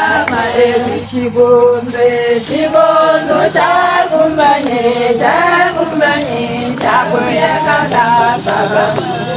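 A group of women singing together, a cappella, with hand claps.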